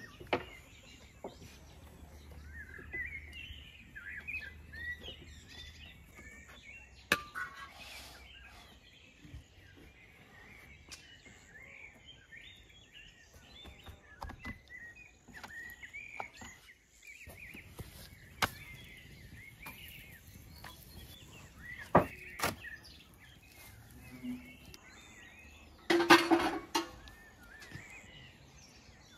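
Small birds chirping and twittering on and off in the background, with a few sharp knocks scattered through and one louder, fuller sound near the end.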